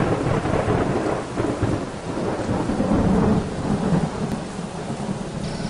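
A thunderclap, then thunder rumbling and slowly fading over several seconds, with rain falling steadily.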